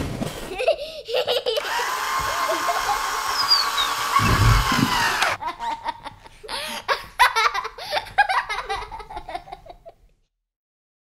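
Young child laughing and giggling in repeated bursts, over a steady hiss for the first few seconds, with a low thud about four and a half seconds in; the laughter cuts off about ten seconds in.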